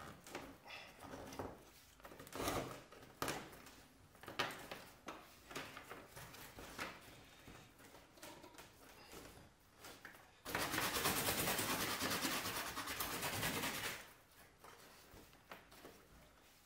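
Split spruce root being drawn through awl holes in birch bark while stitching a canoe panel: scattered rubs and light knocks, then about three and a half seconds of steady rasping drag as a long length of root is pulled through.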